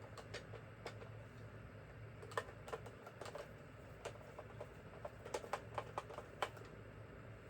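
Light, irregular clicks and taps of hard plastic parts and a tool being handled, with a quick run of clicks about five to six and a half seconds in, over a faint steady low hum.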